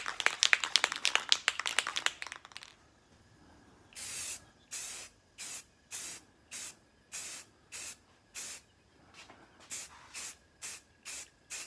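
A Rust-Oleum 2X spray paint can is shaken first, its mixing ball rattling rapidly for about two and a half seconds. After a short pause come about a dozen short hissing bursts of spray, each under half a second, as a light coat of flat grey goes on.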